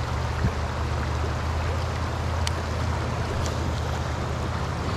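Shallow, fast-flowing river running through rocks and white water: a steady rushing noise with a strong low rumble, and a few faint clicks through it.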